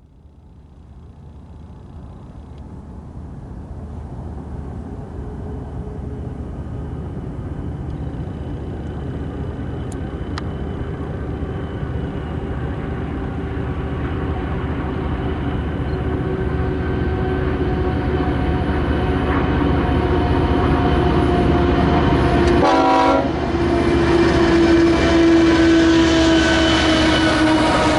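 Union Pacific intermodal freight train's lead diesel-electric locomotives approaching under power: the engine drone fades in and grows steadily louder, with steady humming tones that drop slightly in pitch as the locomotives draw level near the end.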